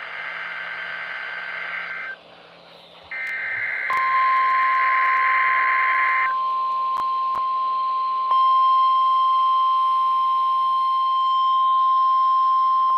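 NOAA Weather Radio test alert heard from a radio receiver. First come two buzzy, screechy bursts of SAME digital header data. Then, about four seconds in, the steady 1050 Hz warning alarm tone starts and holds to the end.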